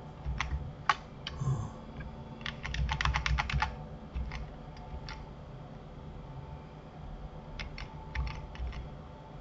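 Computer keyboard keystrokes: scattered single key presses, a quick run of about eight keys around three seconds in, and another short run near the end.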